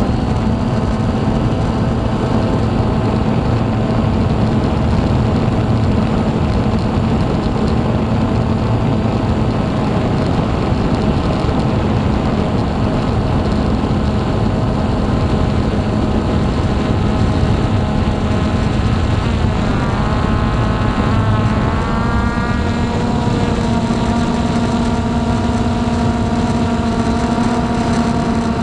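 Hubsan X4 Pro H109s quadcopter's motors and propellers whining steadily in flight, heard from on board over a low rumble. About twenty seconds in, the whine bends and shifts in pitch as the motor speeds change, then holds steady again.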